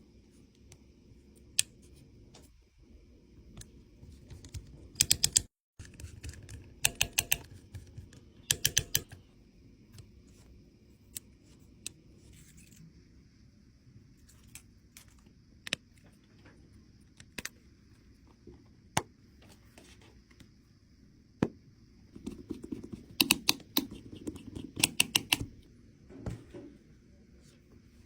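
Small repair tools clicking, tapping and scraping on an iPhone 13 mini during a battery replacement: scattered sharp clicks with a few quick clusters of taps, over a faint steady hum.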